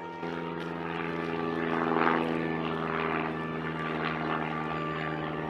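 A formation of CAC Winjeel trainers flying over, their propellers and radial piston engines giving a rough drone that swells to its loudest about two seconds in.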